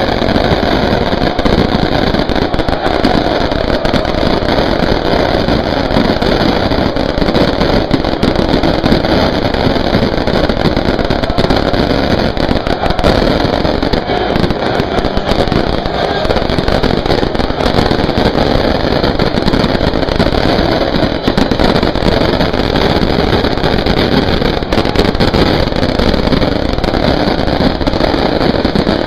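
Large football crowd in the stands singing and shouting together, a loud, unbroken wall of voices.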